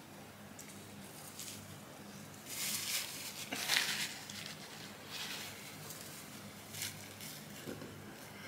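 Paper fast-food wrappers rustling in a few short bursts, loudest between about two and a half and four seconds in, with a few soft clicks over a faint steady room hum.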